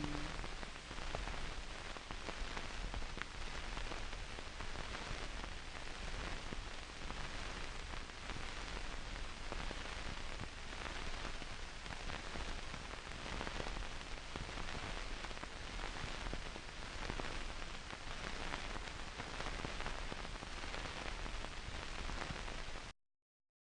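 Steady hiss with fine crackles from an old film soundtrack carrying no music or speech. It cuts off suddenly to dead silence near the end.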